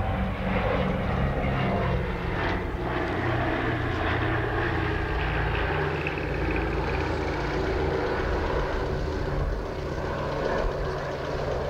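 Short Sunderland flying boat's four piston engines droning in a low pass overhead, the pitch sliding down as it goes by. It then moves away, fading a little near the end.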